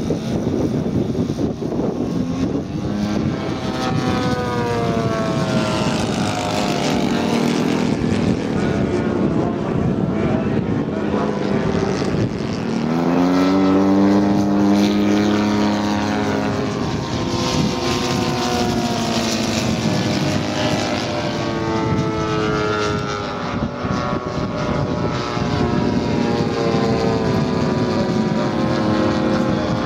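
Engines of large-scale radio-controlled P-47 Thunderbolt model aircraft running at high power on the takeoff run and in flight. Their pitch rises and falls as the models pass. The pitch climbs sharply a little before halfway through, at the loudest point, then slides down again.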